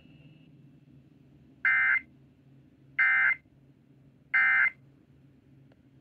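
Three short warbling data bursts about a second and a half apart: the Emergency Alert System end-of-message (EOM) code, which closes a Required Monthly Test, heard through a radio's speaker over a faint hum.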